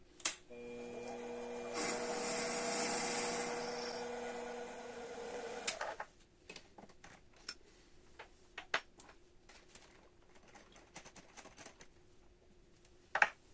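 A mini lathe runs for about five seconds, its motor humming steadily while a twist drill in the tailstock chuck works in a wooden dowel, with a louder cutting hiss for a second or two in the middle, then stops. After that come scattered small metal clicks and taps as the drill chuck is loosened and the bit is changed.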